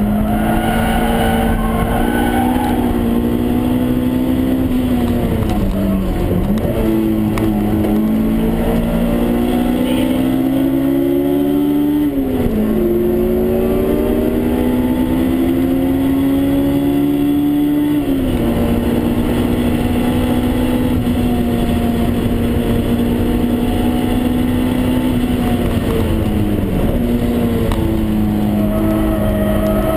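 Honda S2000's high-revving 2.0-litre four-cylinder engine heard from inside the cabin under hard acceleration on track. Its pitch climbs through the revs and drops sharply at upshifts about twelve and eighteen seconds in. It then holds a steady pitch for several seconds before dipping and climbing again near the end.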